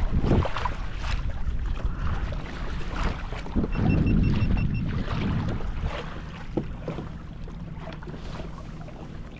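Wind buffeting the microphone and water sloshing along a pedal-drive fishing kayak's hull as it moves, with scattered knocks and a short run of high beeps about four seconds in.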